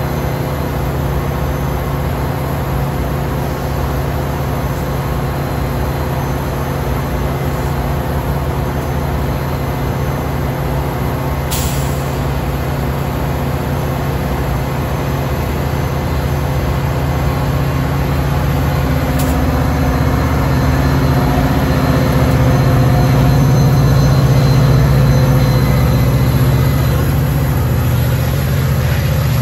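Diesel engine of a Metra EMD F40PH locomotive running with a steady low drone at the head of a stopped commuter train. It grows louder about twenty seconds in as the locomotive throttles up to push the train away. Two brief sharp sounds cut through, about twelve and nineteen seconds in.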